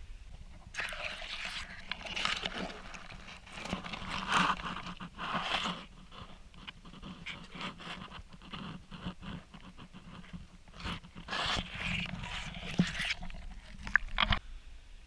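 Irregular bursts of scratchy, scraping handling noise from an action camera held at and dipped under the pond surface, with a few sharp clicks near the end.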